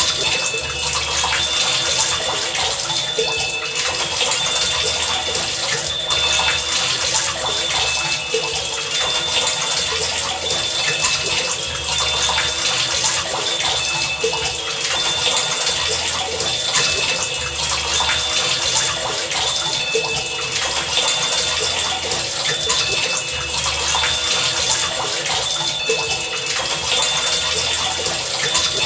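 Heavy rain falling steadily as a dense, even hiss of drops. Under it a low throb comes and goes every second or two, and short high tones recur.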